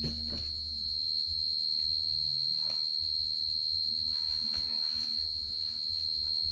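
A steady high-pitched whine on one unchanging tone, over a low hum, with a few faint clicks.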